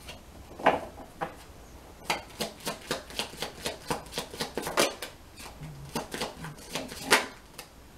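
A deck of oracle cards being shuffled by hand: a run of quick, irregular card snaps and flicks, sparse at first and thickening from about two seconds in.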